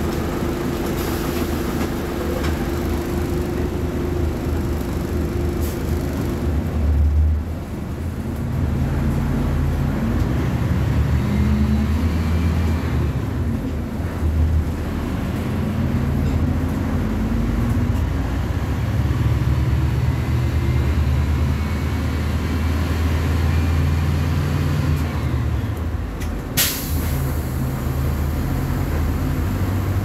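Volkswagen 17.230 OD city bus diesel engine running, steady at first, then its revs rising and falling again and again as it pulls and changes gear. A short sharp hiss of air comes about 26 seconds in.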